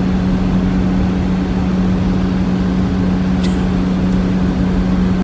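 Steady engine and road noise heard inside a moving car, with a constant low hum that holds one pitch throughout.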